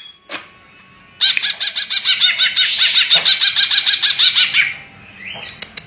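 A caged green leafbird (cucak ijo) singing a rapid run of repeated high chirping notes, about six or seven a second. The run starts about a second in and lasts roughly three and a half seconds.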